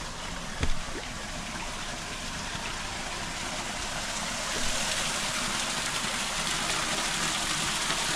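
Water running and splashing, getting louder about halfway through, with a single short knock a little before a second in.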